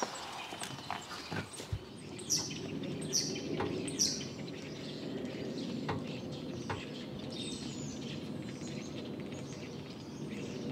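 Outdoor ambience with a bird chirping: a few short, high, falling chirps between about two and four seconds in, over steady low background noise.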